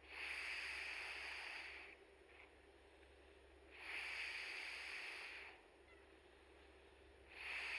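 Domestic cat snoring in its sleep: slow, hissing breaths, each about a second and a half long and coming about every three and a half seconds, two full ones and a third starting near the end.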